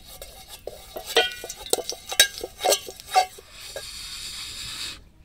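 A bamboo stick knocks against an aluminium pot several times, each knock ringing briefly. Then comes a steady rush of air for about a second and a half, from a bamboo blowpipe blown into the wood fire under the pot, which cuts off suddenly near the end.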